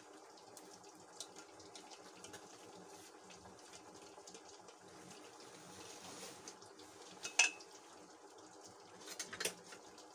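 A silicone spatula scraping thick chocolate custard out of a stainless steel saucepan as it pours into a glass dish. Light clicks run through it, with one sharp clink of pan on dish about seven seconds in and a few quicker knocks near the end.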